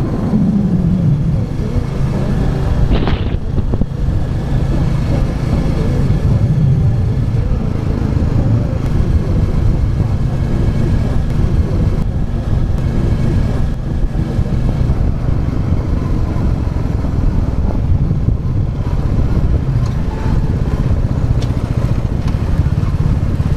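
Royal Enfield Classic 350's single-cylinder engine running steadily while riding, its revs easing off in the first second. A brief sharp higher sound cuts in about three seconds in.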